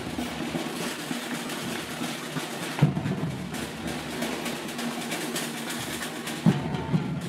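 Drum troupe of tabals, large double-headed Catalan drums, and snare-type drums beaten with sticks in a dense, fast rhythm, with two louder accented hits about three seconds in and near the end.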